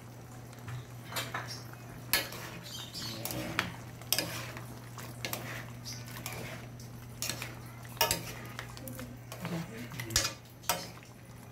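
Metal ladle stirring a chunky stew in a metal wok, knocking and scraping against the pan in irregular clinks about once or twice a second. A steady low hum runs underneath.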